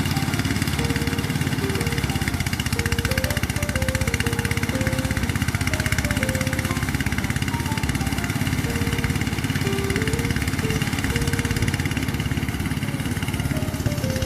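An engine running steadily at an even pace, with a faint melody of single notes playing over it.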